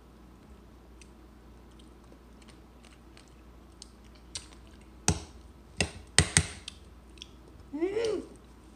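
Metal forks clicking against a ceramic plate and a plastic bowl while eating: faint taps, then four sharp clicks in a cluster about five to six and a half seconds in. Near the end, a short vocal sound that rises and then falls in pitch.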